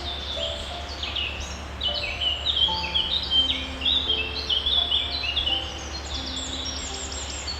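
Small birds chirping: a busy run of short, quick high notes that thickens about two seconds in and thins out near the end, over a steady low hum.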